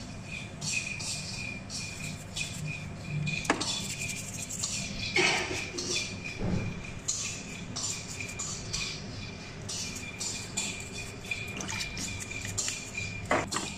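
A toothbrush scrubbing the shell and claws of a live mud crab in a basin of water, in repeated short scratchy strokes, with splashes and drips as the crab is handled.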